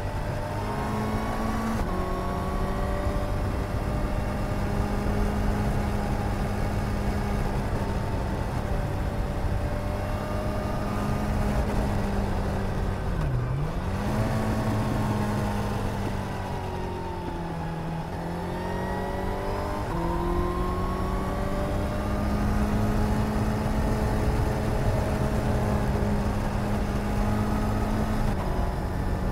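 Suzuki GSR 750's inline-four engine pulling the bike along at a mostly steady engine speed. The revs dip briefly and climb back about halfway through, then drop and rise again a few seconds later as the throttle is eased and reopened.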